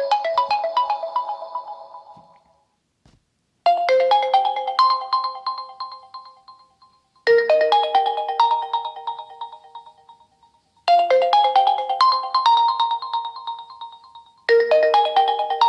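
Oppo Find X3 Pro ringtones playing. One fades out in the first couple of seconds, then after a short gap another starts: a short phrase of quick pitched notes, repeated about every three and a half seconds.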